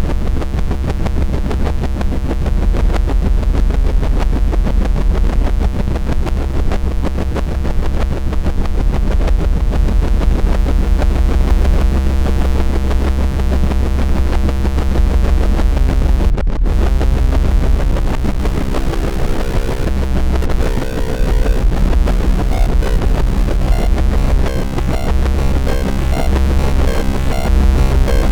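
Loud electronic noise music: a dense, pulsing texture over a steady deep bass, with held tones in the low middle and a momentary cut-out about sixteen seconds in.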